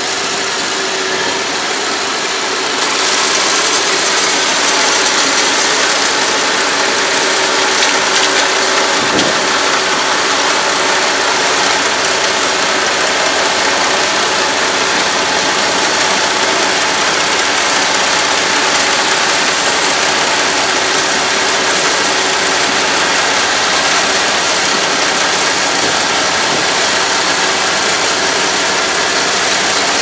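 Kubota ARN460 combine harvester running steadily as it harvests rice, a dense mechanical noise that grows louder about three seconds in and then holds.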